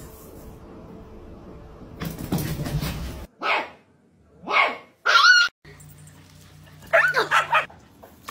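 Dogs barking: three separate barks about a second apart, then a quick run of barks near the end.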